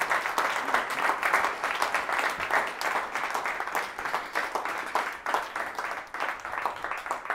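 Audience applauding, a dense patter of many hands clapping that thins somewhat in the last couple of seconds.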